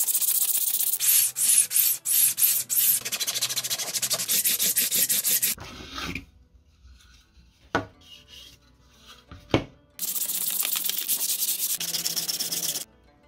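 Sandpaper rubbing over a 3D-printed PLA part in quick strokes, stopping about halfway through; two sharp taps fall in the pause, then the sanding starts again for a few seconds.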